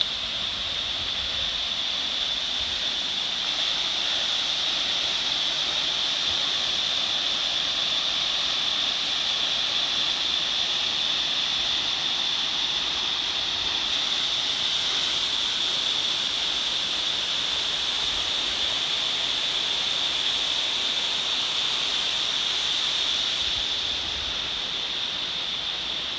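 Steady rush of water from a mountain stream and waterfall, a continuous hiss that grows a little louder after the first few seconds and eases off near the end.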